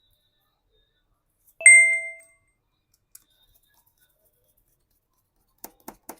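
A single sharp metallic ding, like a small metal tool or part striking a hard surface, rings briefly about a second and a half in and fades within half a second. A few light clicks follow near the end.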